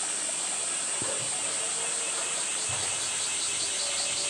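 Steady, high-pitched insect chorus, rapidly pulsing, with a couple of dull low thumps about one and three seconds in.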